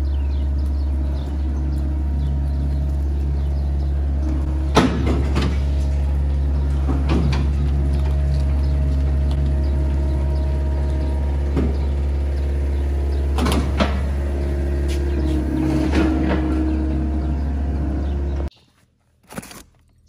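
Engine of a farm machine idling steadily in a low hum, with several sharp knocks over it. The hum cuts off suddenly near the end.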